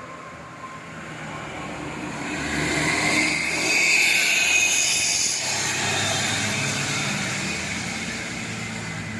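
Road vehicle passing by: engine and tyre noise swell to a peak about three to five seconds in, then fade, while a deeper engine hum builds near the end.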